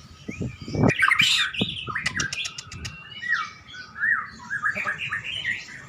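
White-rumped shama singing: a varied run of rich slurred whistles and rapid phrases, loudest about a second in, with a quick series of sharp ticking notes around two seconds in.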